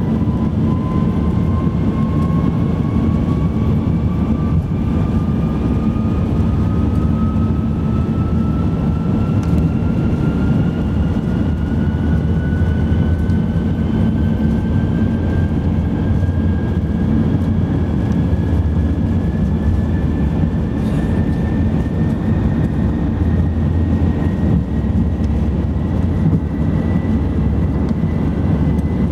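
Cabin noise of an Airbus A380 taxiing on its Rolls-Royce Trent 900 engines: a steady low rumble with a thin engine whine that climbs slowly and evenly in pitch throughout.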